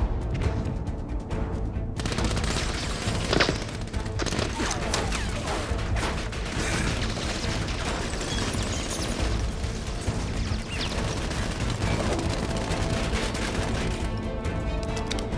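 Action-film fight soundtrack: music under a dense run of sharp bangs and hits, like gunfire and blows, starting about two seconds in and thinning out near the end.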